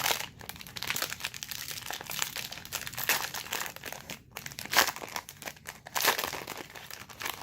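Plastic wrapper of a trading card pack crinkling as it is torn open and pulled off the cards, with several sharper crackles.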